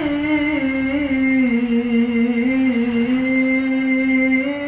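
Male Quran reciter's voice in melodic qiroah (tilawah), holding one long ornamented note without a break, wavering and dipping slightly in pitch before rising again near the end.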